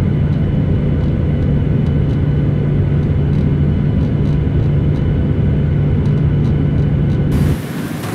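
Boeing 737-800 cabin noise while taxiing to the gate: its CFM56 jet engines idling, a steady low hum under a rush of air, heard from a window seat over the wing. About seven and a half seconds in it cuts off suddenly to a quieter, hissier cabin background.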